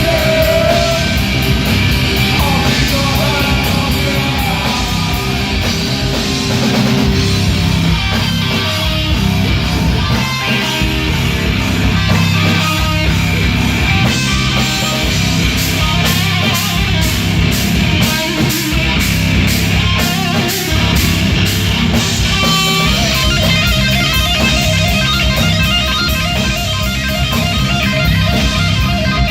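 A live rock band playing loud, guitar-driven heavy rock.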